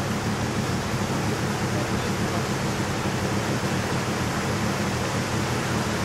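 Steady rush of water from a small river cascade and its rapids, an even roar with no breaks.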